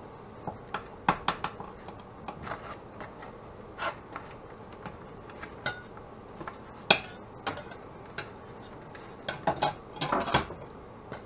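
Metal spatula clinking and scraping against plates as an omelette is cut and lifted from one plate to another: scattered taps, the sharpest about seven seconds in, and a quick cluster near the end.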